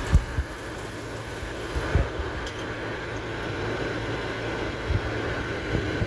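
2009 Ford Explorer engine idling steadily, with the air conditioning just switched on. A few short low thumps come through, the strongest right at the start and about two seconds in.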